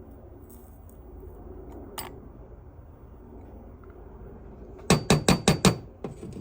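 A single click, then a quick run of about six sharp taps on a small hard container, knocking the last of the gold out for weighing.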